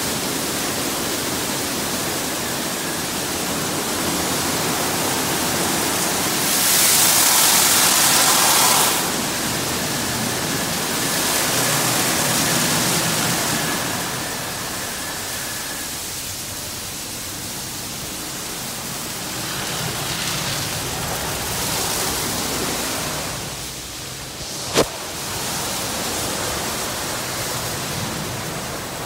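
Washworld Profile MAX soft-touch car wash at work: spinning foam brushes and water spray beating on a car, a loud steady rushing hiss that swells louder twice. A faint steady whine runs under it through the first half, and a single sharp click comes near the end.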